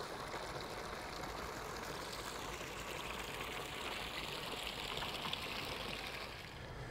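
Faint, steady outdoor background noise: an even hiss with no distinct events.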